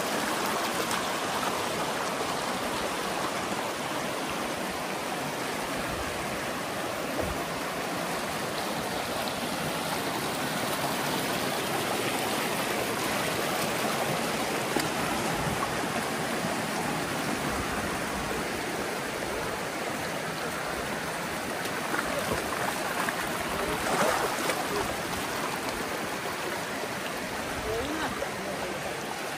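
Mountain village river rushing steadily over rocks, with a brief louder burst near the end.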